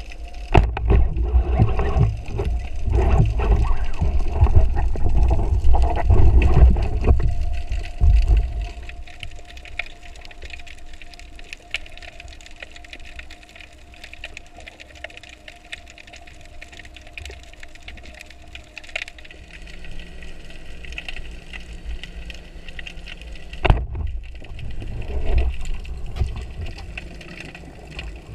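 Underwater sound of a spearfisher at work: a sharp knock right at the start, the speargun firing at a fish, then loud churning water noise and knocks for several seconds. After that a quieter underwater hiss with a faint steady hum, a single sharp knock about 24 seconds in, and more water churning as the diver kicks toward the surface.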